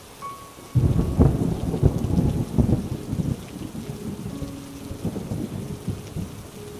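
A thunderclap breaks about a second in and rolls on, slowly fading over the next few seconds, over a steady patter of rain.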